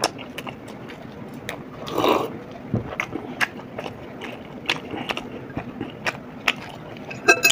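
Close-miked chewing and biting of soft chicken kebab, with scattered small mouth clicks and smacks. There is a short breathy swell about two seconds in and a few sharper clicks near the end.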